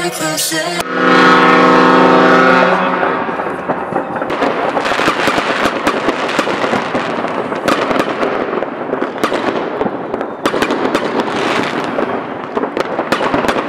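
Fireworks going off overhead: a dense, continuous crackling of glittering stars with many sharp bangs and pops, after a brief loud held tone near the start.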